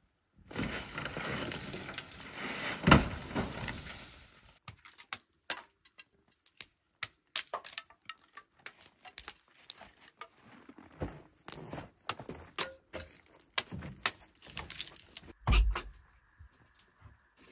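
Firewood being split and handled: rustling at first, then irregular sharp knocks, cracks and clatters of wood, with a heavy thud about fifteen and a half seconds in.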